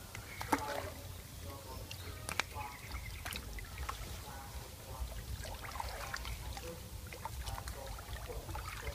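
Hands sloshing and splashing in shallow, muddy, weed-choked water while feeling for fish, with scattered sharp splashes and rustles; the sharpest comes about half a second in.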